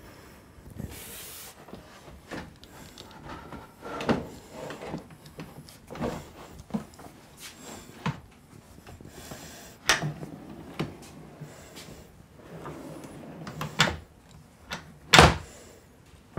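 A full-length framed mirror being lifted and fitted onto a wall-mounted concealment insert, with a string of scattered knocks, bumps and clunks against the wall and frame. The loudest knock comes near the end.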